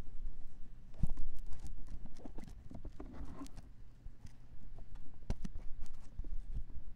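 Handling noise on a 3Dio Free Space binaural microphone as RHA CL750 earphones are pushed into its rubber ears: irregular knocks, scrapes and rubbing with a low rumble, picked up directly by the ear microphones. It comes in two bouts, about a second in and again from about five seconds.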